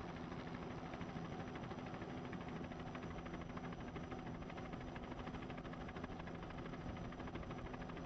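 A steady mechanical hum with two held low tones over a faint even noise, unchanging throughout, like a motor running at constant speed.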